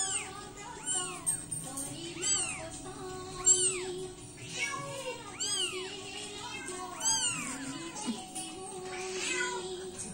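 A newborn kitten mewing over and over, high thin cries that rise and fall in pitch, about one every two-thirds of a second. Background music plays underneath.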